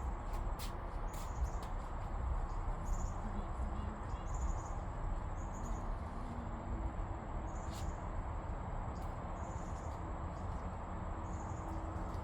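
Outdoor garden ambience: a steady high-pitched insect drone with short high chirps every second or two, over a constant low rumble and a few scattered clicks.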